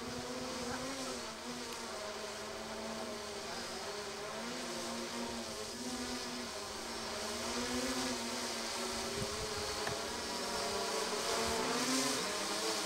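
Foxtech H-Wing VTOL's electric motors and propellers buzzing in vertical hover mode as it comes down to land, the pitch wavering up and down as the motors adjust. It grows slowly louder.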